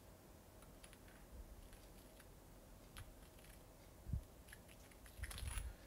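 Faint small clicks and light taps of brass rifle cartridge cases and a hand chamfering tool being handled, with a dull bump on the bench about four seconds in and a few softer bumps near the end.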